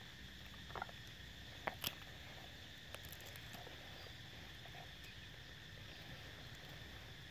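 Faint outdoor background of a steady high insect drone over a low rumble. A few short, sharp clicks or chirps come about one to two seconds in.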